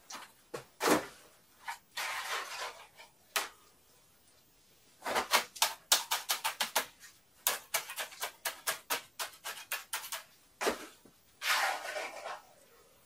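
Bricks and tools handled by hand: a few single knocks and short scrapes, then two quick runs of sharp clinking taps, several a second, and a longer scrape near the end.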